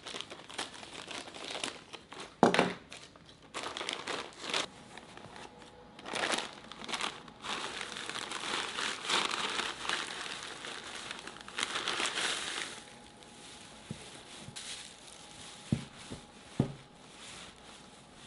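Plastic bag of shredded Easter grass crinkling as it is snipped open with scissors and handled, and the grass rustling as it is packed into a felt basket. The crinkling dies down about two-thirds of the way through, followed by three soft knocks.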